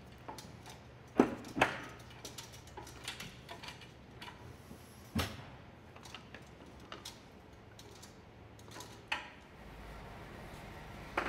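Clicks and knocks of a truck camper's door latches and folding metal entry steps being handled, with two sharp clanks just over a second in and more around five and nine seconds in.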